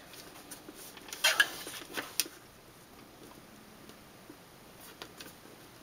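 Card stock being slid and lined up on a plastic paper trimmer: a brief paper rustle and a few light clicks about a second or two in, then quiet handling with faint ticks.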